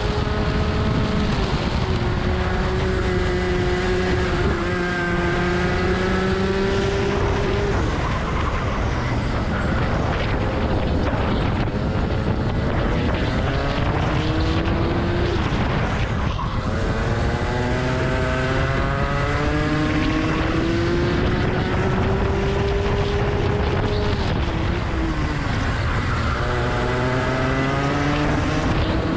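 Rotax 125cc two-stroke kart engine heard onboard at racing speed, its pitch climbing through each straight and falling away sharply three times as the kart brakes for corners.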